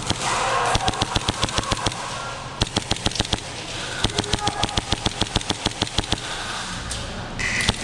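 Airsoft guns firing in rapid bursts, a quick run of sharp cracks repeated several times during an indoor speedsoft game.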